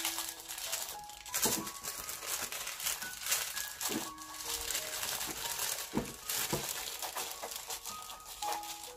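Tissue paper crinkling and rustling as it is folded and creased by hand, over soft background music of scattered single notes.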